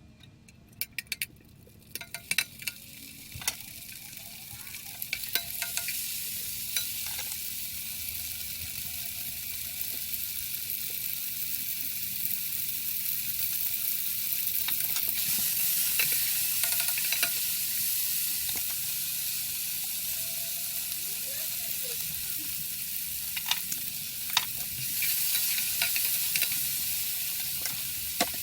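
Food frying in a hot pan: a steady sizzle that builds over the first few seconds and then holds, with occasional sharp clicks of a utensil against the pan.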